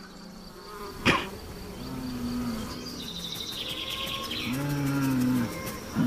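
Bulls lowing: low, drawn-out moans, one about two seconds in and a longer one near the end, over a steady buzz of insects. A short sharp sound about a second in.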